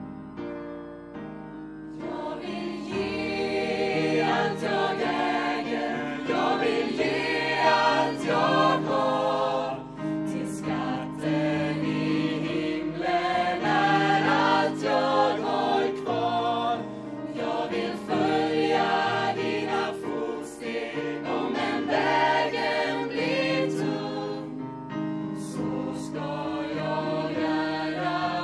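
Choir singing a Swedish worship song with musical accompaniment.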